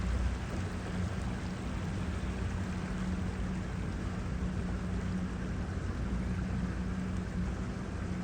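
Boat engine running steadily with an even low hum, over a wash of water and wind noise.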